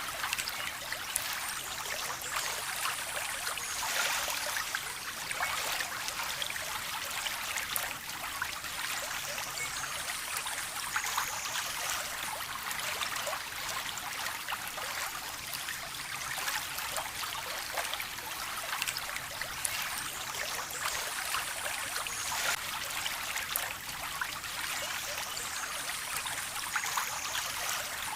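Small stream of water trickling and splashing steadily, with many small drips and splashes over an even rush.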